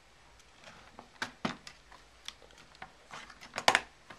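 Plastic top case of a white late-2006 MacBook clicking and knocking against the chassis as it is handled and set back down: a scatter of sharp clicks, thickest and loudest near the end.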